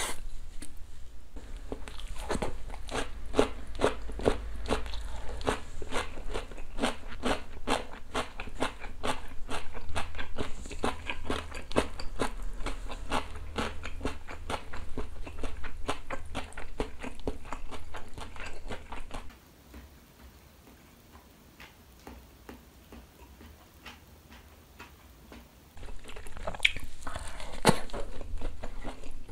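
Close-miked eating: crunchy chewing of smashed cucumber pickle and smoked chicken, with rapid crunches two or three a second. The crunching drops away for several seconds about two-thirds of the way through, then loud crunching starts again near the end.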